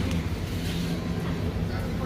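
Steady low hum of a motor vehicle's engine running, with no revving.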